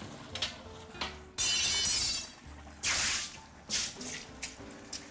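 Water splashing and hissing as it is poured over a hot casting mould fresh from a kiln, in two long bursts and a short one, quenching it in a metal bin. Sharp knocks of metal tongs and mould against the bin.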